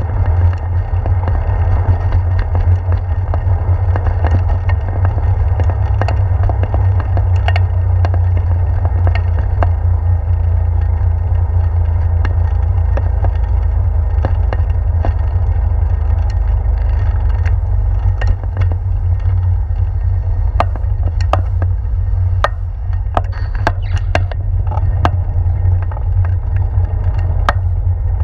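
Bicycle rolling over a wooden boardwalk: a steady, loud low rumble of wind and tyres, with scattered sharp clicks and knocks that come thicker in the last third.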